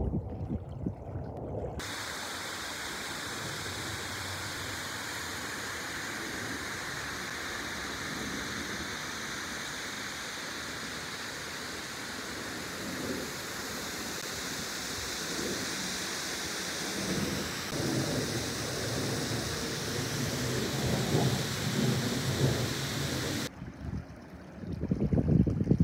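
Steady rushing of water, an even hiss that starts abruptly about two seconds in and cuts off near the end. Low wind rumble on the microphone comes before and after it.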